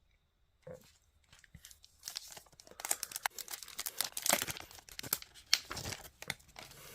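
A Panini WWE Select trading-card pack wrapper being torn open and crinkled by hand. It is quiet at first, then a rapid run of crackling tears starts about two seconds in.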